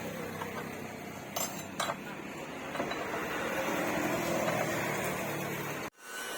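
Steady workshop machine hum with two light metallic clinks about one and a half and two seconds in; the sound cuts off abruptly near the end.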